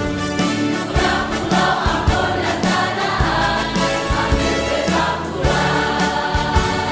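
A choir singing with held, sustained notes, over regular low percussive hits.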